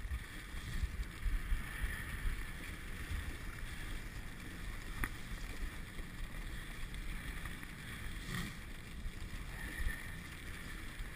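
Dog sled moving fast along a snow trail: a steady rumble and rustle of the runners on snow, with wind buffeting the microphone.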